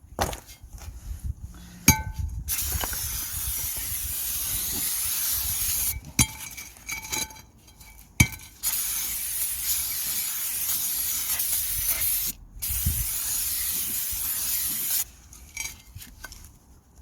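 Aerosol brake cleaner spraying onto drum brake shoes and drum in three long hissing bursts of a few seconds each, the last two split by a brief pause, with a few sharp clicks and clinks between them.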